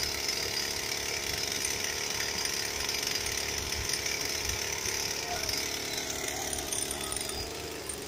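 Small two-stroke engine of a long-reach pole pruner running steadily under throttle, easing off a little near the end.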